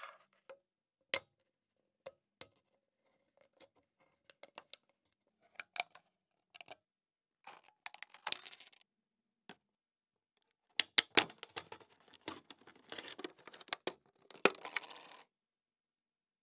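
Thin aluminium drink can being handled and cut open with scissors: sharp taps and clicks, then snips and crinkling of the metal, densest in the second half.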